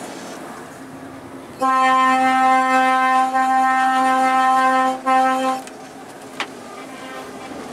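Truck air horn sounding one long, steady single-note blast of about three seconds, then a short second blast, loud, as heard from inside a lorry cab. A single sharp click follows a moment later.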